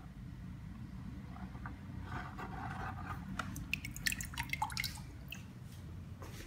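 Water sloshing in a plastic bucket as an aquarium net is worked through it, then a quick run of splashes and drips as the net is lifted out, loudest about four seconds in. A steady low hum runs underneath.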